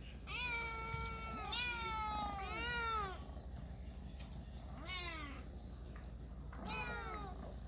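Domestic cat meowing repeatedly: three meows in quick succession, then two more spaced a couple of seconds apart, each rising and then falling in pitch.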